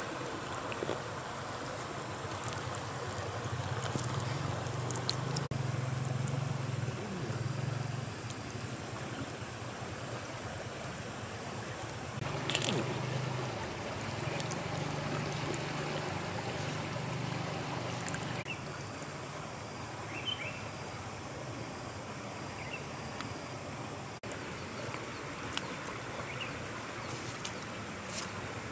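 Steady noise of running river water, with a low rumble through the middle stretch and a few short, faint chirps near the end.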